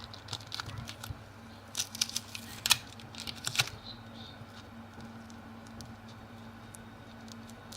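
Small plastic packet of slime sprinkles being handled: a few sharp clicks and crinkles, bunched between about two and four seconds in, over a faint steady hum.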